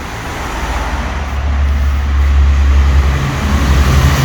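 A motor vehicle running, a low rumble that grows louder over the first couple of seconds and then holds steady.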